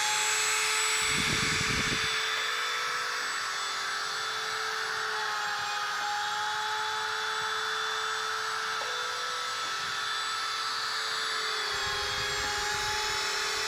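Small high-speed spindle motor of a DIY CNC PCB drilling machine running with a steady whine, its pitch shifting slightly now and then. Twice a short low rumble joins it, about a second in and again near the end.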